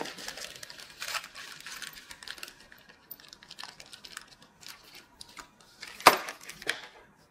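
Hands fiddling with aluminium window hardware: scattered small clicks, taps and rustles of metal and plastic parts, with one louder sharp click about six seconds in.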